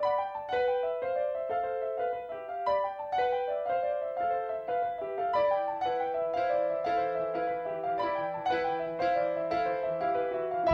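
Background music: a piano-like keyboard playing a quick run of short notes that starts abruptly, with a lower held note coming in about halfway through.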